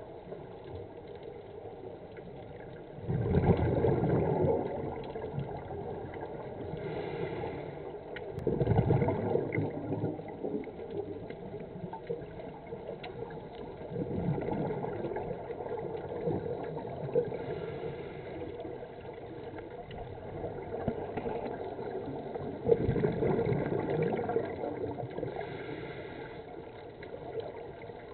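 Scuba breathing heard through an underwater camera: exhaled regulator bubbles gurgling out in four loud bursts a few seconds apart, with fainter hissing between them.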